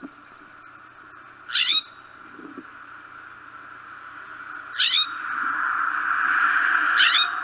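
Scrub jay giving three short, harsh calls a few seconds apart, each sweeping upward in pitch.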